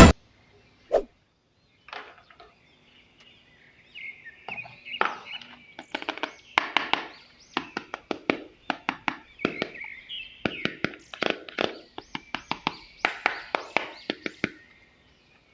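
Irregular clicks and knocks of objects being handled, sparse at first and coming quickly from about four seconds in, with birds chirping faintly in the background.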